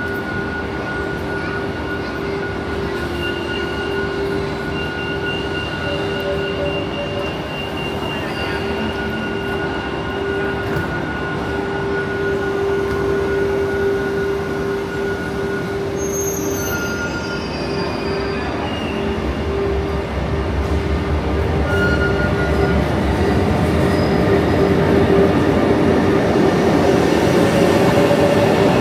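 Renfe 450 series double-decker electric commuter train standing at the platform, its equipment humming with several steady tones. From about two-thirds of the way through, a low train rumble builds and a whine rises in pitch near the end as a train gets moving.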